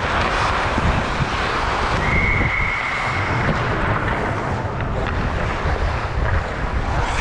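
Wind buffeting the microphone, a steady rumbling noise. About two seconds in, a single high steady tone sounds for about a second and a half.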